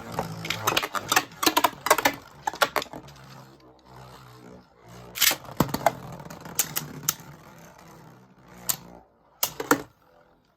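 Two Beyblade Burst spinning tops, Wolborg and Spryzen, battling in a stadium: a steady whir with rapid clacking hits as they collide, thinning out to a few last knocks near the end.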